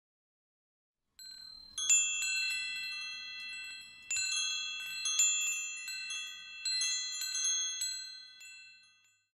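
Bright, high chime notes ringing out in about four overlapping clusters, each cluster struck together and left to ring, dying away near the end.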